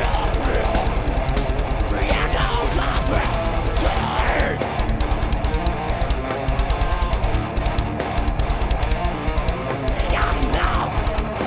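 Live heavy metal band playing loud and steady: distorted electric guitar over fast drumming on a drum kit. A vocalist shouts into a microphone about two to four seconds in and again near ten seconds.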